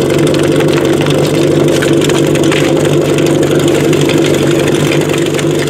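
Portable fire pump's engine idling steadily at a constant pitch, with short clicks and clatter from hoses and couplings being handled around it.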